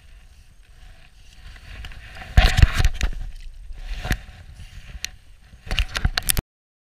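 Handling noise on a body-worn GoPro action camera: faint rubbing of clothing, then a loud burst of knocks and scrapes about two and a half seconds in, single knocks near four and five seconds, and a quick cluster of taps as a finger covers the camera. The sound cuts off abruptly.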